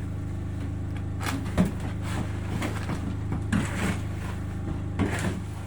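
An engine running steadily, with several sharp knocks and scrapes on top of it.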